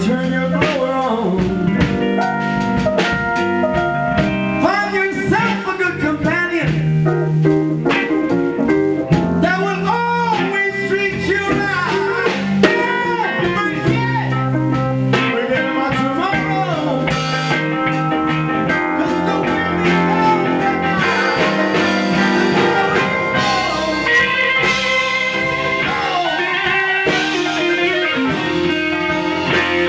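Live blues band playing: a male singer and electric guitar lines over electric bass and drum kit.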